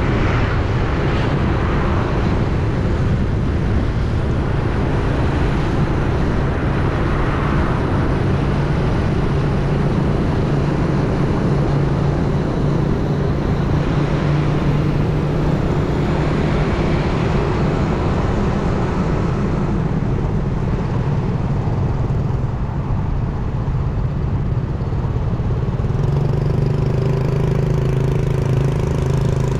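Steady engine hum and road and wind rush from a vehicle moving along a city street, the engine note rising slightly near the end.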